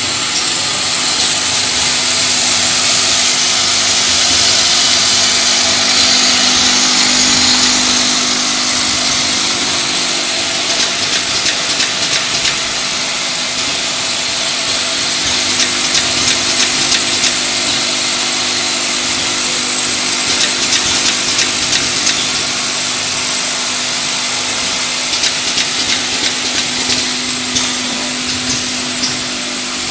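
Automatic small-bottle filling and capping line running: a steady mechanical whir with a low hum underneath, and runs of quick clicks and rattles from about a third of the way in.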